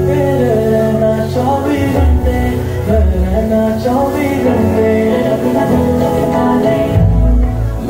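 A song with singing and heavy bass, played loud over a DJ sound system.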